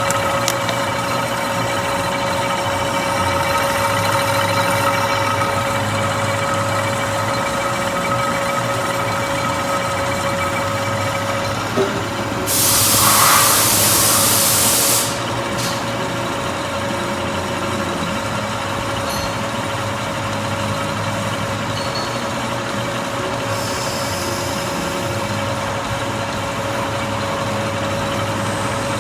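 A metalworking machine tool running steadily with a constant hum and whine. About twelve and a half seconds in, a loud hiss lasts about two and a half seconds, and a fainter hiss follows near twenty-four seconds.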